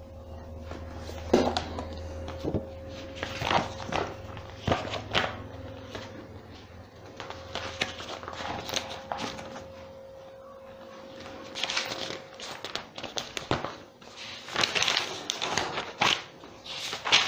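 Irregular rustling, clicks and knocks of someone handling things close to the microphone, louder and denser near the end, over a faint steady hum.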